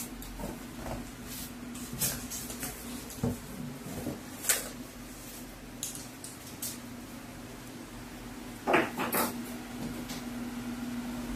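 Cardboard shipping box being opened by hand: flaps folded back and handled, with scattered knocks and rustles and a louder cluster of knocks about nine seconds in.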